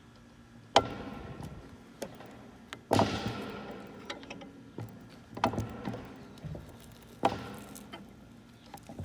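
Slime-filled aluminium energy drink can buckling as a vise crushes it: five sudden sharp cracks, a second or two apart, each trailing off over about a second.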